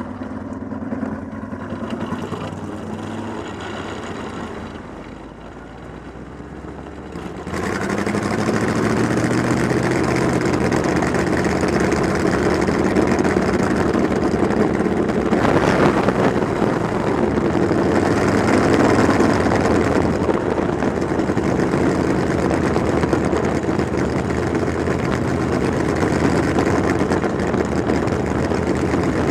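Onboard sound of a Midwest Lights sprint car's engine running at low track speed, quieter for the first seven seconds or so and then louder and steady for the rest.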